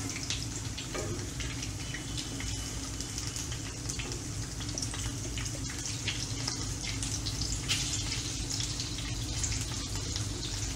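Stuffed capsicums sizzling steadily in hot oil in a kadhai, with faint scattered clicks as they are turned over with a spatula.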